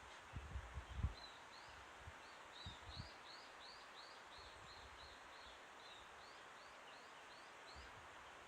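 A bird singing a long run of short, repeated high notes, about three a second, over faint outdoor hiss. There are a few low bumps on the microphone in the first three seconds.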